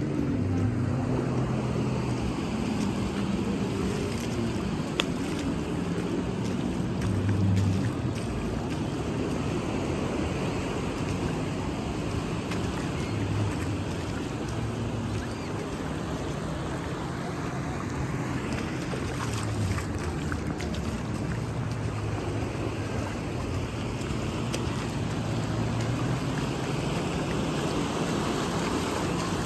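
Seaside ambience: a steady wash of surf with wind buffeting the microphone in uneven low rumbles.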